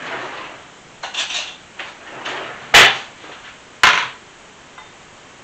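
Seeds being scraped out of a halved melon into a glass bowl: soft scraping, then two sharp knocks on the bowl about a second apart.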